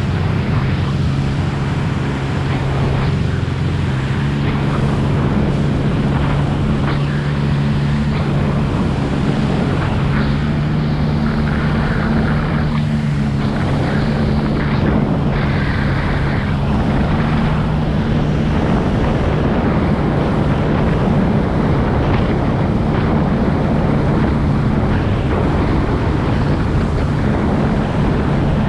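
Jetski engine running at a steady cruising speed, heard from aboard, with wind buffeting the microphone and water rushing past the hull.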